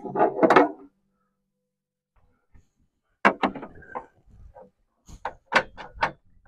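Sharp clicks and knocks of tools and hardware against a Ford Bronco's tailgate during hand work on the inner panel, in irregular clusters: a few at the start, then two quick runs of taps in the second half, separated by a few seconds of silence.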